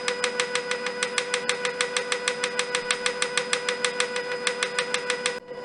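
Moulinex Cuisine Companion food processor running at speed 7, whisking egg whites: a steady motor hum with a fast, even ticking of about ten clicks a second. The sound drops out for a moment near the end, then carries on.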